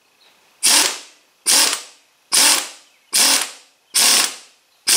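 Pneumatic wrench run in six short, evenly spaced bursts, a little under one a second, driving down a track-clip crimper to squeeze a guide clip closed onto a snowmobile track.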